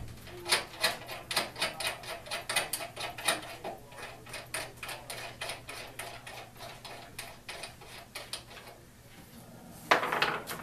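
Rapid, irregular clicking and tapping from hand work on metal and wood, about three or four clicks a second, thinning out after about four seconds, with a short, louder scraping noise near the end.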